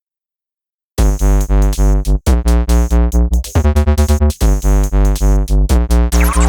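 Electronic music with synthesizer chords over a pulsing bass beat, starting about a second in after silence.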